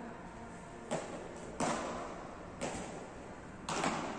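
Beach tennis rackets striking the ball in a rally: a series of sharp hits about a second apart, the last two close together, each echoing in a large hall.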